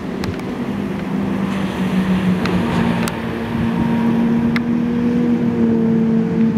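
Motorboat engine running under way, its pitch stepping up a little about two seconds in and holding steady, over rushing wind and water noise.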